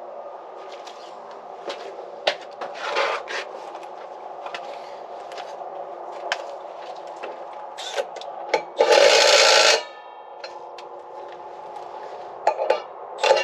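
Light clinks and taps of metal parts over a steady hum. About nine seconds in, an impact wrench runs in one loud burst of about a second, running down the nuts on a planter disc opener.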